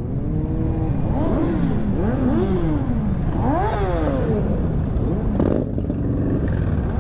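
Motorcycles in a large procession revving: throttle blips whose pitch rises and falls, about one a second, over the steady rumble of many engines.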